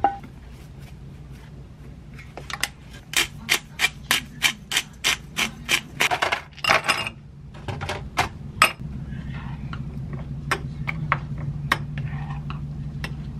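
A plastic herb shaker tapped over a pot of risotto: a run of sharp clicks about three a second. Near the end a spoon clinks against a glass jar, over a low steady hum.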